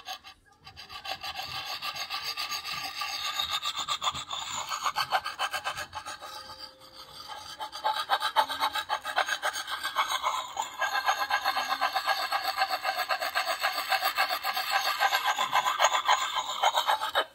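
Coarse grit side of a Lansky puck sharpening stone rubbed in small circles along the high-carbon steel edge of a Marbles Hunter's Axe: a rapid, steady grinding rasp as the edge is sharpened. It eases off briefly about six seconds in, then resumes and stops abruptly near the end.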